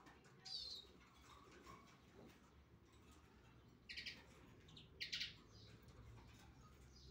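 Three-week-old European goldfinch chick giving short, high begging calls while being hand-fed: one about half a second in, then a few more around four and five seconds in.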